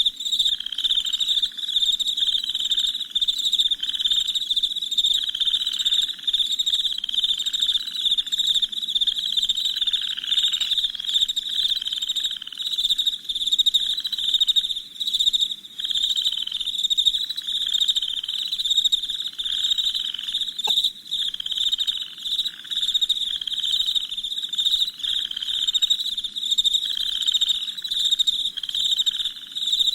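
Night chorus of crickets chirping densely and without a break, with a lower pulsing call repeating about once a second.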